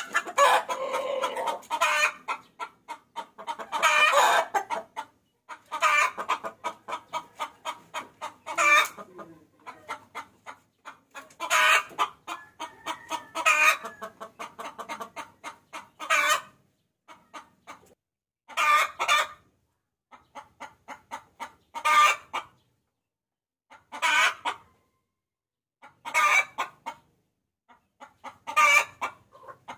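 Hen cackling. Runs of quick clucks come every couple of seconds, most ending in a louder note, as a lure call that draws a rooster.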